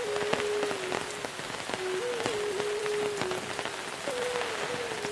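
Steady rain falling on a lane and the trees around it, with many separate close drops ticking. Underneath runs a thin held tone that steps slowly up and down in pitch.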